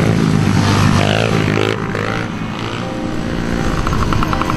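Small children's dirt bikes running as they ride past one after another, engine pitch rising and falling with the throttle.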